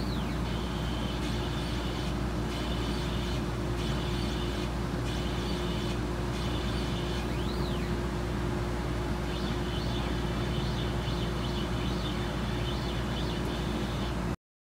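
Epilog Fusion M2 laser cutter running while it cuts circles in cardboard: a steady hum and rush, with a high motor whine that stops and starts as the head moves, and a couple of short rising-and-falling glides. The sound cuts off suddenly near the end.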